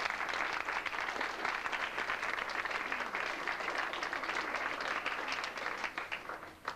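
Audience applauding after a reading, the clapping fading out near the end.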